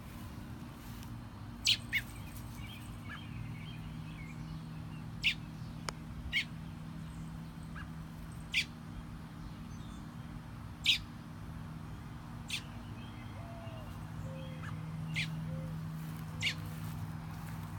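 A bird giving short, sharp, high chirps that drop quickly in pitch, repeated every second or two, with soft twittering between them. A steady low hum runs underneath.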